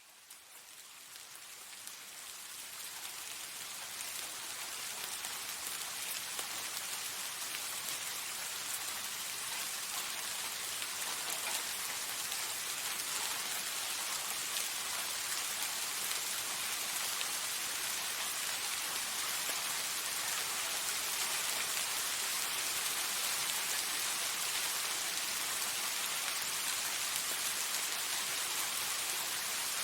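Soft steady rain falling, an even hiss of many drops, fading in over the first few seconds and then holding steady.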